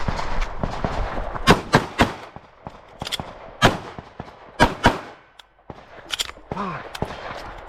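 9mm Glock pistol fired in a competition course of fire: a string of sharp shots, some single and some as quick pairs, with short pauses between groups.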